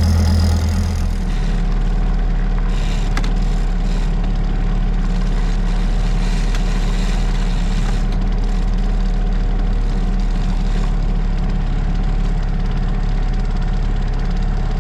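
Small outboard motor running steadily, pushing a sailboat along at low speed.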